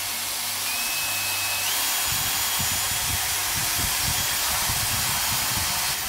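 Hilti SF 6H-A22 cordless drill running fast, with a plastic roller-skate wheel spinning on a bolt in its chuck and coarse P120 sandpaper held by hand against the wheel, giving a loud rasping hiss. The motor's whine steps up in pitch about a second and a half in.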